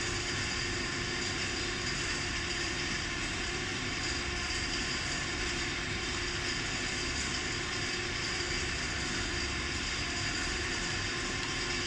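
Steady mechanical hum with a hiss over it, unchanging throughout, with no distinct handling clicks standing out.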